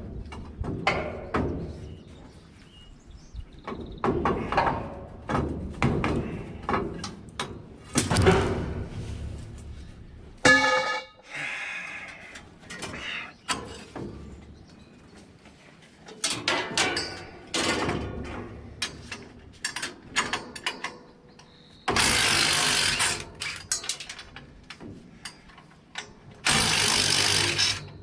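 Metal knocking and clanking from work on a New Holland 851 round baler as its slat cross-pieces are worked loose. About ten seconds in, one loud ringing metal clang. Near the end, two loud steady rushing bursts of about two seconds each.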